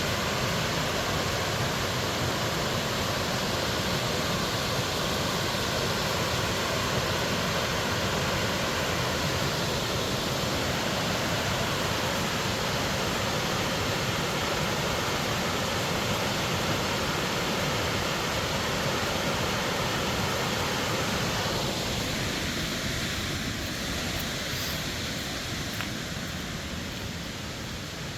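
Steady rushing of Burgess Falls, a waterfall plunging more than 130 feet into a gorge on the Falling Water River, heard as an even wash of noise. It gets somewhat quieter after about three quarters of the way through.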